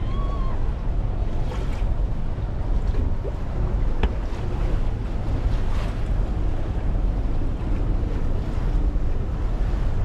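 Wind buffeting the microphone over the steady rush of water along the hull of a moving boat, with one sharp click about four seconds in.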